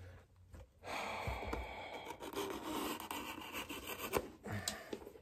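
Steady rubbing and scraping of hands working a leather shoe and its leather sole. It starts about a second in, with a sharp tick near the end.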